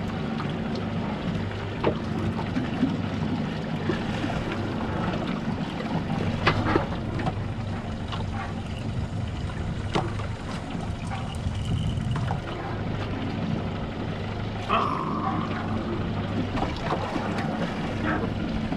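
Fishing boat's engine running steadily with a low hum, with scattered light knocks and clicks.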